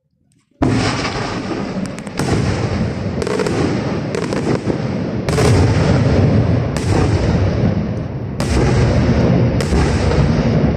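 Aerial firework shells bursting overhead. The barrage starts suddenly with a loud bang about half a second in, then runs on as a dense rumble of explosions, with a sharper report roughly every second.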